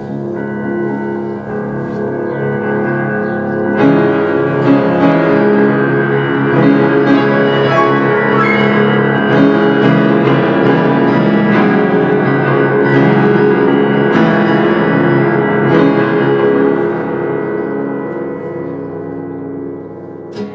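Piano playing a slow instrumental passage, growing louder about four seconds in and fading away over the last few seconds.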